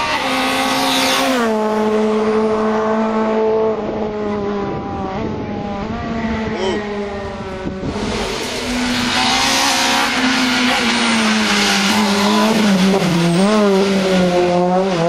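Citroën C2 rally car's engine held at high revs, dropping in pitch once about a second and a half in and wavering up and down near the end as the car goes by.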